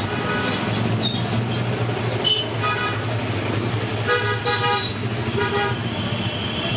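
Street traffic with vehicle horns honking three times over a steady engine rumble.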